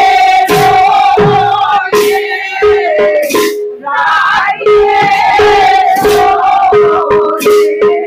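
Group of women singing a devotional song together, accompanied by hand cymbals clashing at a steady beat and a barrel drum whose deep strokes slide down in pitch.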